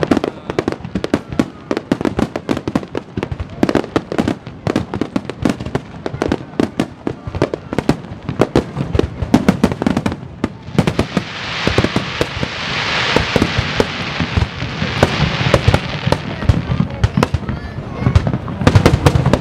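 Fireworks display: a rapid barrage of shell bursts, many bangs a second. In the middle a dense crackling hiss swells for several seconds under the bangs.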